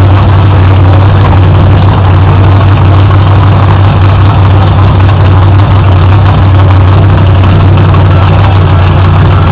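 Monster truck engine running steadily at low revs. It is very loud and close, with a deep, even hum that does not rise or fall.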